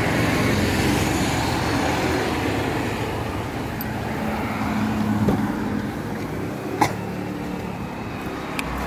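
Steady road traffic noise from passing vehicles, with a sharp click about seven seconds in as a car door is opened.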